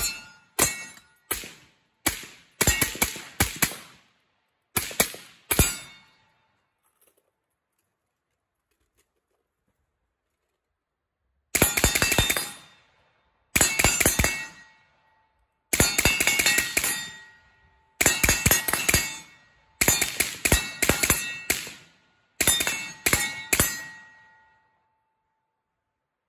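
Semi-automatic DS Arms RPD in 7.62x39 with a Dead Air Wolverine suppressor, fired in rapid strings of shots, with steel targets ringing after hits. About five strings, a pause of roughly six seconds, then six more strings.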